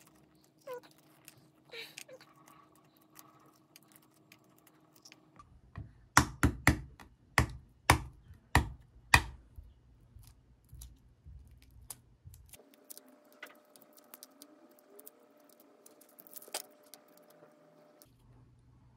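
Hard-boiled egg shell crackling and flaking off as it is peeled by hand. In the middle comes a run of about seven sharp knocks as a boiled egg is tapped on a wooden cutting board to crack its shell. After that comes more soft crackling of shell being peeled.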